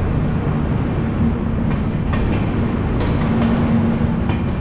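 Passenger train rolling slowly out of a station: a steady rumble and hum from the moving coach, with the wheels clicking now and then over rail joints.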